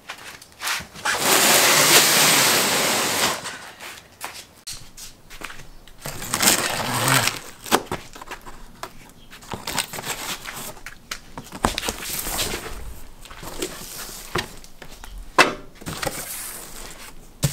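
A cardboard shipping box being cut open and unpacked by hand: a long, harsh noise lasting about two seconds near the start, then scattered knocks, clicks and rustling of cardboard and plastic bubble wrap.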